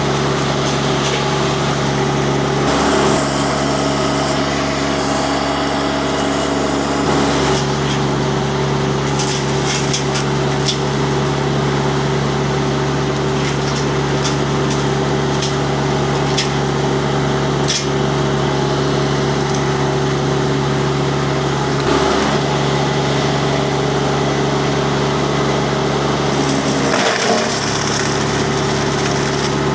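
Mini skid steer's diesel engine running steadily under load, driving a hydraulic disc mulcher that chews into wood with repeated sharp cracks and splintering. The engine briefly bogs down under the load near the end.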